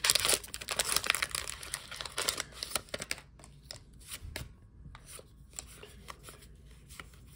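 Foil booster pack wrapper crinkling and tearing open for about the first three seconds, then softer scattered flicks of the trading cards being slid out and handled.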